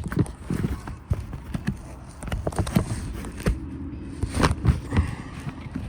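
Irregular knocks, clicks and rustling of hands working a carport side-wall tie through the fabric panel and frame.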